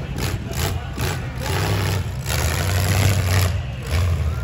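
V8 demolition derby car engines running through open exhaust stacks, a steady low rumble.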